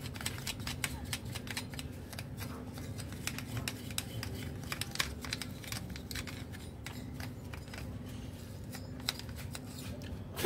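Irregular light clicks and ticks of hand tools and small metal brake parts being handled during scooter brake pad work, over a low steady hum.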